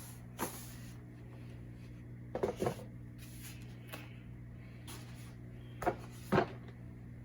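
A few knocks and short scrapes from handling the cardboard box and its packing, about four times, over a steady low hum.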